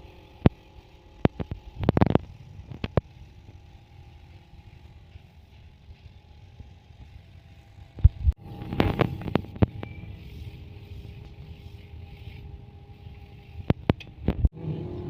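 Scattered knocks and clatter from repair work on a tractor, coming in a few short clusters over a low steady rumble.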